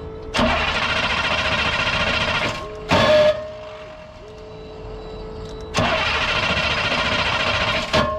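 Short school bus's diesel engine cranked over twice by the starter, each crank about two seconds long, without catching, with a brief louder burst between the two. The engine is not firing yet; it needs oil pressure built up and starting fluid before it will run.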